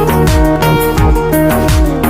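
Loud electronic background music with a steady beat, a melody of short notes and repeated falling bass sweeps.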